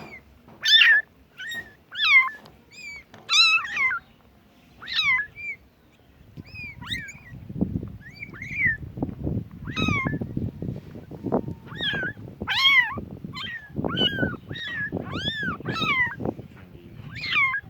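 Very young kittens meowing repeatedly in short, high-pitched cries. From about six seconds in, a low, uneven noise runs underneath the calls.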